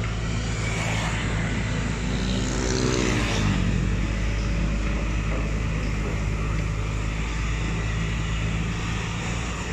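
Diesel engine of a pontoon-mounted Hitachi excavator running steadily as it works its hydraulic boom and bucket in the water. The pitch briefly rises and falls between about two and three and a half seconds in.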